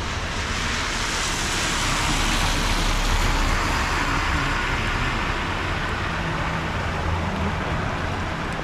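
Car tyres hissing through water on a flooded road as a vehicle drives past, the spray swelling to a peak a few seconds in and then easing. A low engine hum comes in during the second half as another car moves along the road.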